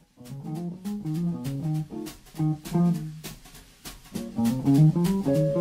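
Clean-toned semi-hollow electric guitar playing improvised single-note jazz lines over chord changes, with sharp picked attacks. One phrase ends a little past halfway, and after a pause of about a second a busier run begins.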